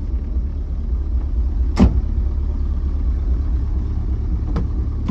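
Chevrolet Corsa's engine idling, a steady low rumble, with a sharp knock a little under two seconds in and a fainter click near the end.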